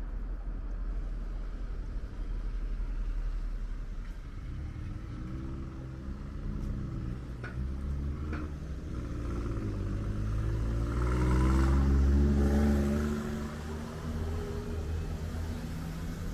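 A motor vehicle drives past on the street. Its engine note rises as it accelerates and is loudest about twelve seconds in, then fades, over a low steady traffic rumble.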